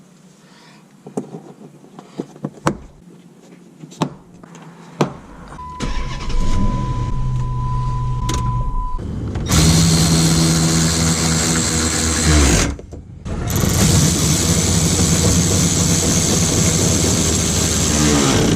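A few light clicks, then the Dodge Magnum R/T's 5.7 HEMI V8 is started. A steady tone sounds for a few seconds once the ignition comes on, then the engine catches about nine seconds in and runs loudly, with a brief break around thirteen seconds.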